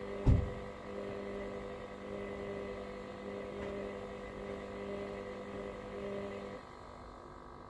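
Hoover washer-dryer running on a cotton 90 programme with extra dry, with a steady hum. There is a single low thump a moment in, and the hum stops shortly before the end.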